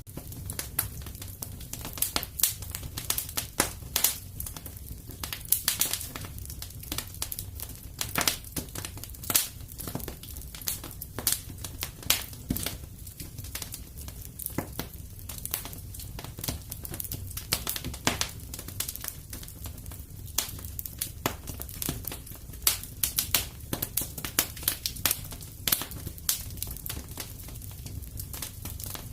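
Wood fire in a fireplace crackling steadily, with frequent irregular snaps and pops over a low, even rumble of the flames.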